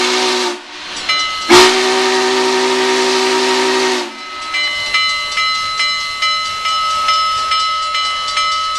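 Union Pacific No. 844's steam whistle blowing: the tail of one blast, then one long blast of about two and a half seconds with a hiss of steam. After it the locomotive's bell rings steadily, about two strikes a second.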